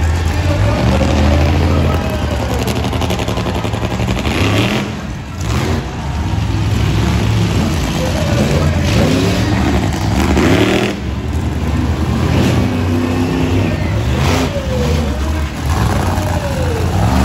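Monster truck engines running loud and revving as the trucks drive past, their pitch rising and falling again and again.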